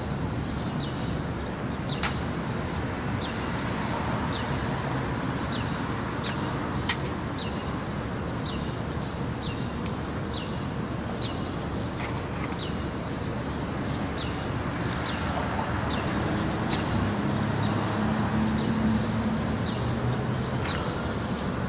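City street ambience: a steady traffic rumble with short high chirps repeating about once a second. A vehicle's engine hum grows louder and passes about three quarters of the way through.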